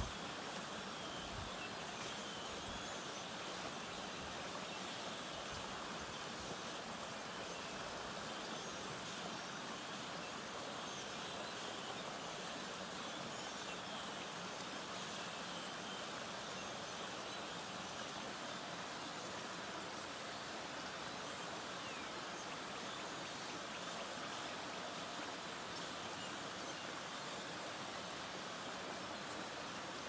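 Small stream flowing and splashing over a low drop at a fallen log into a pool: a steady rush of water.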